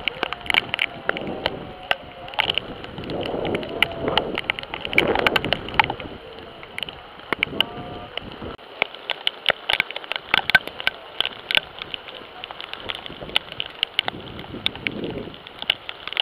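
Heavy rain falling, with frequent sharp ticks of raindrops striking close to the microphone.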